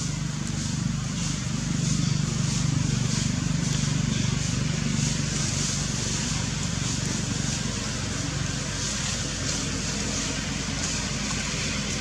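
A motor running steadily, with a low hum and a hiss over it, a little louder between about two and five seconds in.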